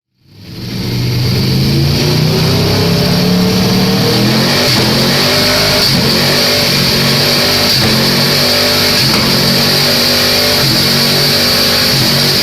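Aprilia RSV4 R's V4 engine running hard through a series of quickshifter upshifts: the pitch climbs, drops at each shift and climbs again, with a few sharp pops as the quickshifter cuts the ignition.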